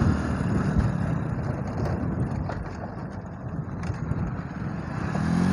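Motorcycle riding along a rough road, heard from on board: engine running under steady wind and road rumble. Near the end an engine note swells and falls back.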